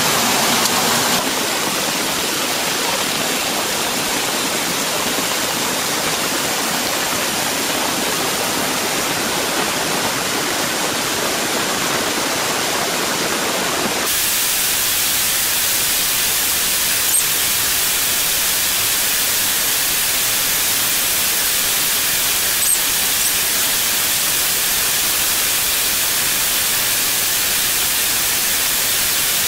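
Rushing water of a canyon creek and waterfall, a steady noise. About fourteen seconds in it turns abruptly thinner and hissier, with two faint clicks later on.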